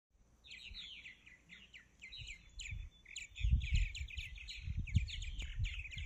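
A flock of purple martins chattering in flight: a rapid run of short, high chirps. Low rumbling on the microphone comes in about halfway through.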